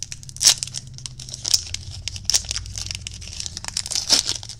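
Crinkling and crackling of plastic trading-card packaging as cards and packs are handled, in a quick irregular series of sharp crackles.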